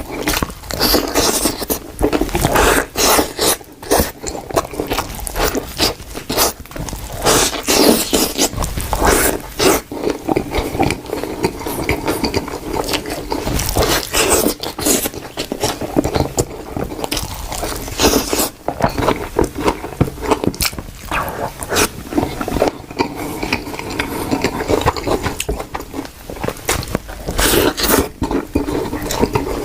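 Close-miked ASMR eating: a person biting into and chewing fast food, a dense, irregular run of wet clicks, smacks and crunches.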